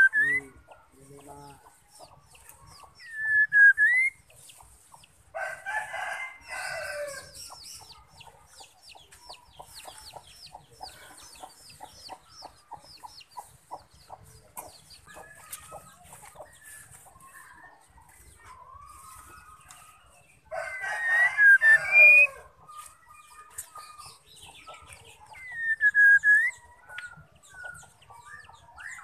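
White-rumped shama giving short, loud up-swept whistles, a few seconds apart, and a run of fast ticking notes in the middle. A rooster crows twice in the background, about five seconds in and again about twenty seconds in, the second crow louder.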